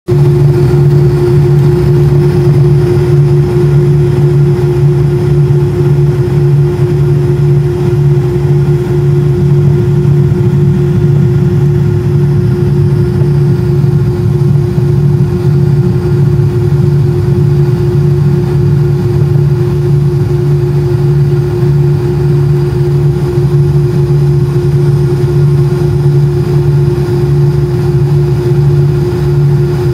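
Steady, loud drone inside an airliner cabin on the ground, with a low hum and a steady higher tone over it, from the aircraft's engines running at idle.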